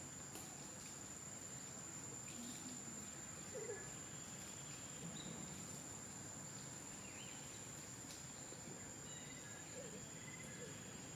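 Steady high-pitched drone of insects in the forest, with a few faint bird chirps now and then.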